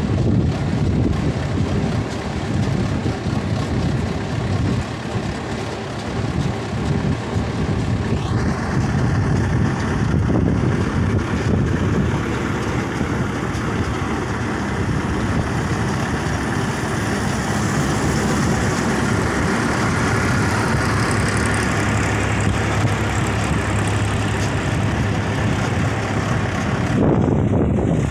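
HMT 5911 tractor's diesel engine running steadily while pulling a heavily loaded grain trolley along a dirt track.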